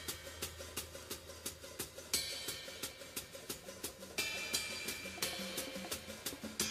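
Background music led by a drum kit: a steady hi-hat beat of about four ticks a second, with cymbal crashes about two and four seconds in.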